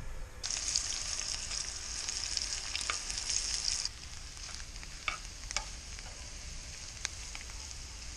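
Sucuk and eggs frying in a pan on a portable gas stove. The sizzle is loud for the first few seconds, then softer, with a few sharp clicks of a spoon stirring against the pan.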